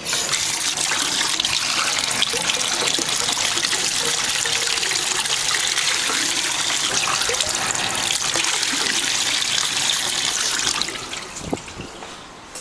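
Water running steadily from a tap, filling the cockatiels' fresh water, then shut off near the end.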